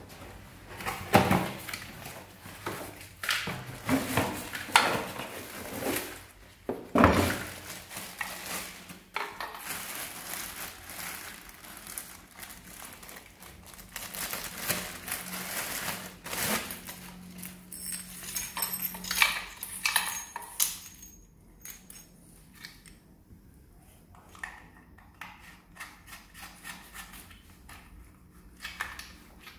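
Handling of chrome shower fittings: sharp metal clinks and knocks, loudest in the first few seconds, with plastic packaging rustling as a flexible shower hose is unwrapped. Lighter clicks follow as the hose is fitted to the hand shower.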